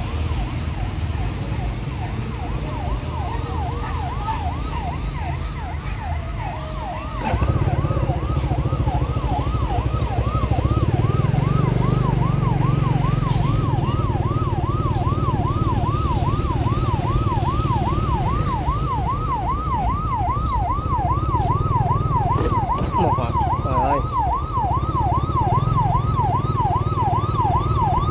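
Electronic yelp siren sweeping rapidly up and down, about two to three times a second, over the steady low rumble of a motorbike riding through floodwater; the rumble grows louder about seven seconds in.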